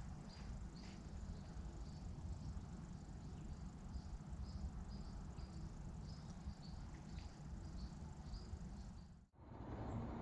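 Crickets chirping: short high chirps repeating irregularly about once or twice a second over a steady low outdoor rumble, cut off sharply about nine seconds in.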